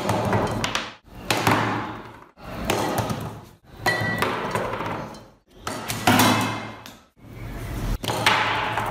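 A run of about seven sharp thuds, each starting suddenly and dying away over about a second, with brief silent gaps between them.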